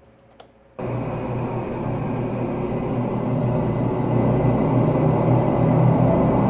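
A motorcycle engine passing in the street, heard on a playback of a room recording. It comes in suddenly about a second in as a steady engine noise that grows slowly louder.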